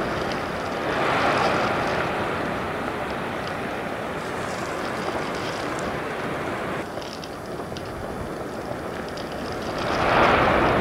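Explosive volcanic eruption throwing out ash and glowing lava: a continuous rumbling rush that swells about a second in, eases in the middle and swells again near the end, with a few faint crackles.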